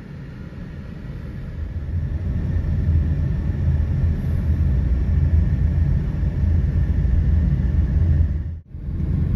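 Low, steady rumble of a car in motion, swelling over the first three seconds and then holding, with a faint thin whine running under it. It dips out briefly near the end at an edit.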